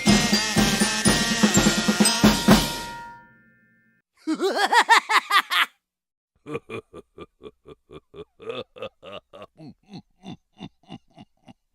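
A string of comedy sound effects. First a drum-kit music sting that rings out and stops about three seconds in. Then a brief quick sound with wobbling pitch, and finally a long run of short pulses, about four a second.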